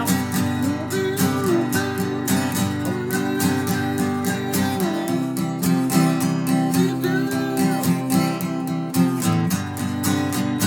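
Instrumental break of a country-style song: acoustic guitar strumming in a steady rhythm while a lead line slides up and down in pitch over it.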